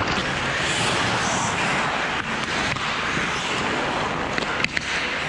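Ice hockey play on the rink: a steady hiss of skate blades scraping the ice, with a few sharp clacks of sticks or puck about four and a half seconds in.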